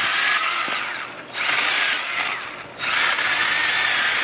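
Battery-powered Milwaukee mini chainsaw running in three bursts at high speed, its electric motor whining; it winds down twice about a second in and two and a half seconds in, the pitch falling, before being run up again.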